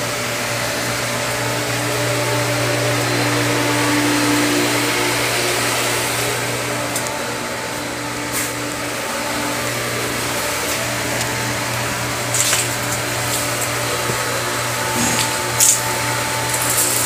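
An electric power tool's motor running steadily at full speed, with a few sharp clicks and rattles near the end.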